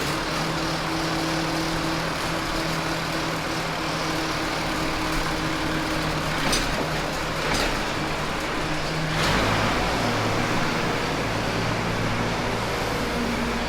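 Tractor engine running steadily. About nine seconds in, its note drops to a lower, slower run, with a few sharp clicks around that time.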